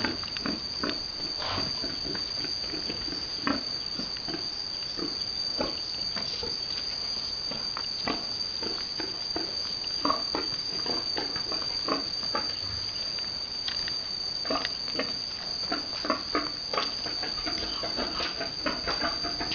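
Pigs grunting in short, scattered bursts, over a steady high-pitched whine.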